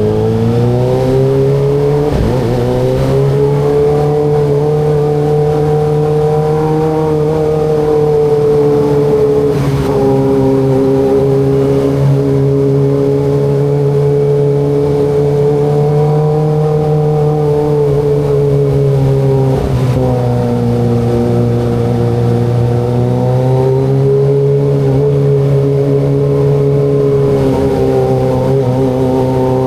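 Kawasaki ZX25RR's inline-four engine running at fairly steady riding revs, with short breaks and dips in the engine note about 2, 10 and 20 seconds in.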